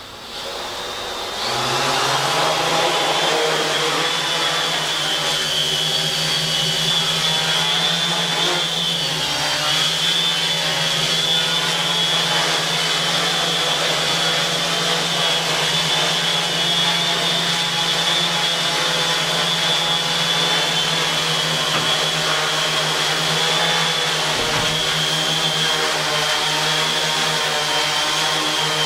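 Quadcopter's electric motors and propellers spinning up about a second in, then a steady buzzing hum with a high whine as it hovers in position hold.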